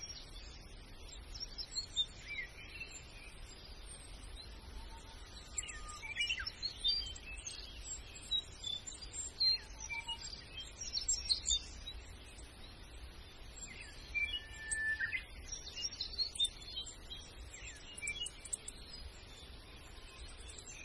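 Birds chirping in short calls and quick pitch glides scattered throughout, over a steady low hum.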